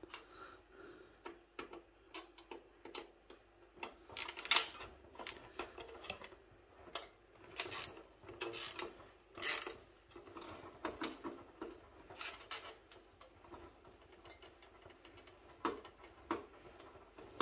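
Quiet, irregular clicks, taps and light rattles of a printer's metal chassis and plastic parts being handled as screws are undone and pieces worked loose, with the sharpest clicks in the middle stretch.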